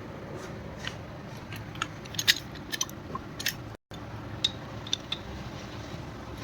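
Small metal engine parts and hand tools clinking and tapping as they are handled and set down, in scattered sharp clicks with a quick flurry in the middle, over a steady low hum.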